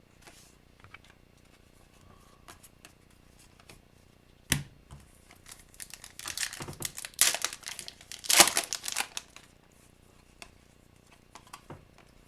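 Foil wrapper of a trading-card pack tearing and crinkling as it is handled and opened. A sharp snap comes near the middle, followed by a few seconds of dense crinkling, with light clicks of card handling before and after.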